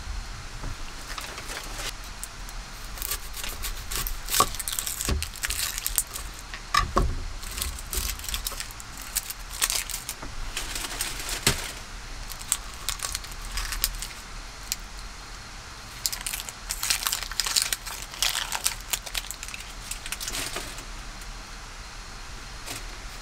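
Dry, papery onion skin crackling and rustling as it is peeled off by hand, in several spells, with a few sharp knocks on the wooden cutting board.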